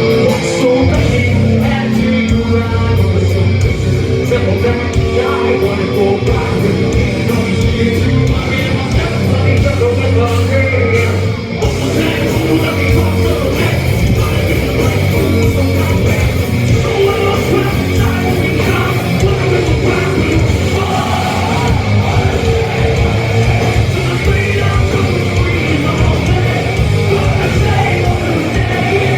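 Heavy metal band playing live and loud: distorted electric guitars, bass and drums, with a singer's voice and yelled vocals over them. The music drops briefly about a third of the way in.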